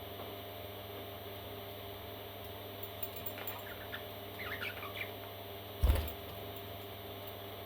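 Faint, short high chirps from parrot chicks over a steady electrical hum, then a single loud low thump about six seconds in.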